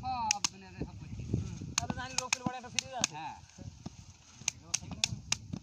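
Irregular sharp knocks and chops of several workers' hand tools and wooden sticks striking the soil of a seedbed, several impacts a second in clusters.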